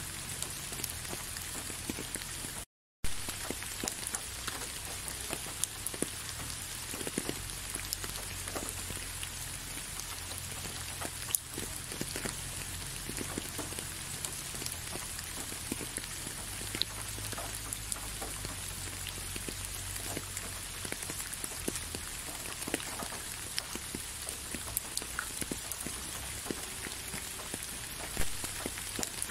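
Steady rain falling, a constant patter with many individual close drops ticking. The sound cuts out completely for a split second about three seconds in.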